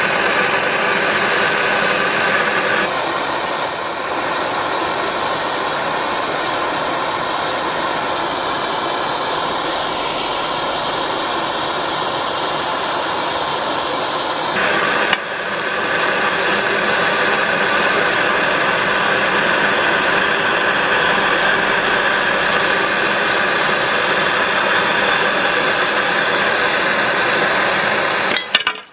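Gas blowtorch burning steadily, a constant rushing hiss from the flame. Its tone changes abruptly about three seconds in and again about fifteen seconds in.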